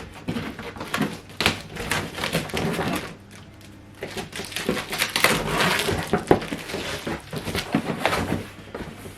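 Box and packaging being handled and opened during an unboxing: irregular rustling and crinkling with short knocks and scrapes, easing off for about a second partway through.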